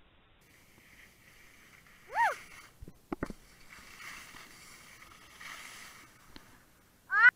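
An animal giving two short, pitched calls, one about two seconds in and one rising call near the end, with two knocks and a soft rustle between them.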